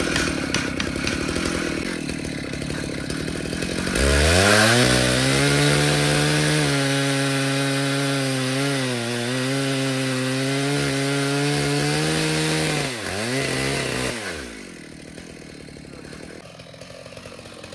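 Chainsaw mill slabbing an oak stump: a large chainsaw with a long Stihl bar, clamped in a rail frame. It runs rough and lower at first, revs up sharply to full throttle about four seconds in, and holds a steady high pitch under load through the wood. It dips briefly near the end, then the throttle is released about two-thirds through and the sound falls away.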